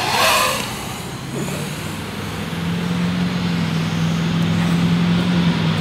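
A motor whine that sweeps down in pitch as it passes right at the start, then a steady low hum.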